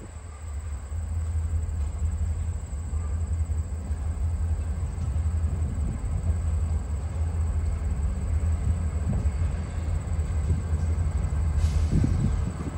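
Diesel freight locomotive approaching slowly, its engine a low, steady rumble that grows louder about a second in.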